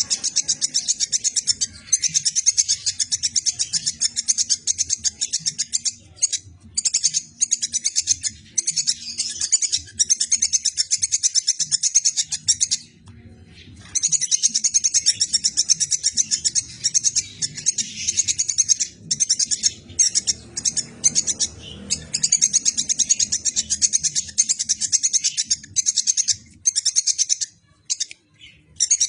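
Squirrel (tupai) chattering: very rapid, high-pitched chirps in long runs with short breaks, and a longer pause about halfway through. This is the kind of call played as a 'master' for songbirds to copy.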